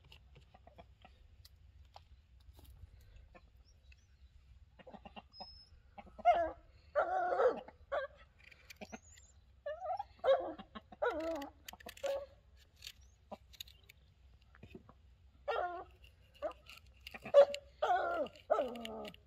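Domestic hens and a rooster clucking in short bursts of calls, starting about six seconds in.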